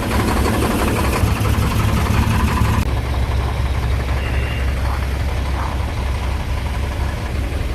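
Diesel semi-truck engine started in the cold: a rapid clatter of cranking and catching for about three seconds, then the engine settles into a steady low idle.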